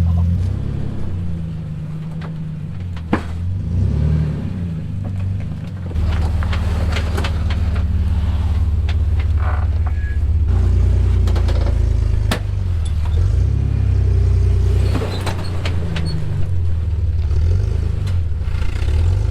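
Off-road 4x4's engine running at low speed as it crawls over rock, its pitch rising and falling with the throttle. It gets louder about ten seconds in, and a few sharp knocks sound over it.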